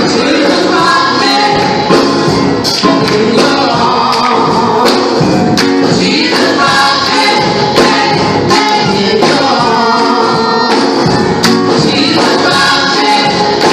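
Live gospel song: a small group of men and women singing lead and backing parts into microphones, over keyboard and drums with percussion hits on the beat.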